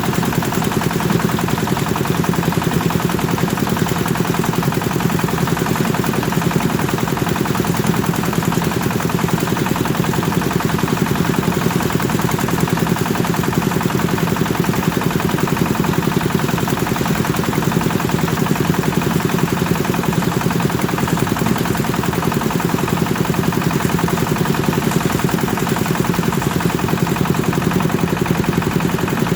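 Kubota engine driving a rice thresher, running steadily with a fast, even chugging beat and no change in speed.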